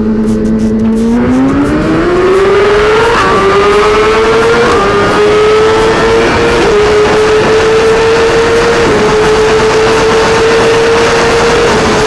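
Inline-four 1000 cc superbike pulled at full throttle from a steady cruise: the engine note climbs sharply about a second in, then dips briefly at each of several upshifts while it keeps pulling.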